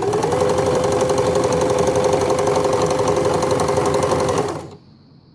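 Empisal Dressmaker 270D electric sewing machine running steadily at speed, sewing out a decorative stitch pattern (stitch J), with a steady motor hum and rapid needle chatter; it stops abruptly about four and a half seconds in, followed by a few faint clicks.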